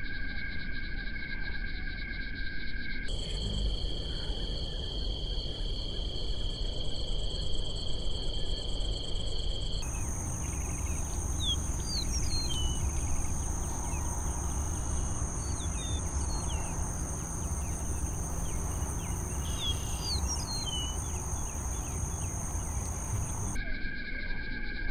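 Pond chorus at dusk: deep bullfrog calls over a steady high insect drone that shifts pitch a few times. Short bird chirps come through in the middle.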